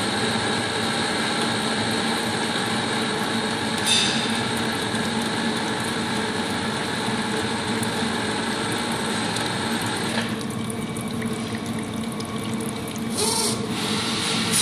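Deckel FP2A milling machine running, its horizontal spindle turning an M24 tap as it backs out of a freshly cut thread: a steady machine hum with a whine. About ten seconds in the higher whine drops away, and short bursts of hiss come at about four and thirteen seconds.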